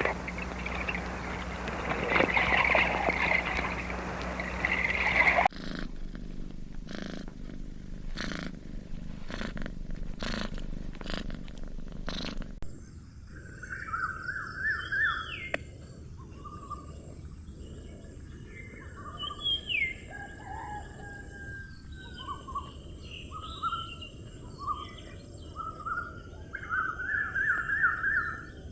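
A run of separate animal recordings. First comes a rough, noisy animal sound for about five seconds. Then a series of evenly spaced pulses, a little more than one a second, for about seven seconds. Last, many short bird chirps and calls fill the remaining time.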